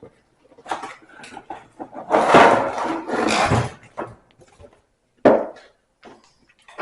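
Cardboard parts box being opened and rummaged: scraping and rustling of cardboard and packaging in short bursts, with a longer, louder stretch of scraping about two to three and a half seconds in.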